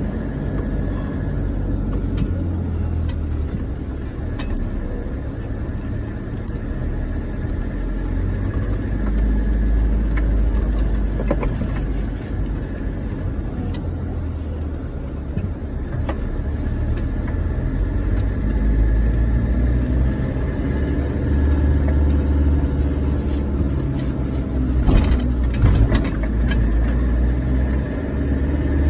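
Car engine and road noise heard from inside the cabin while driving at low speed: a steady low rumble that swells and eases with the engine. There are a few sharp knocks near the end.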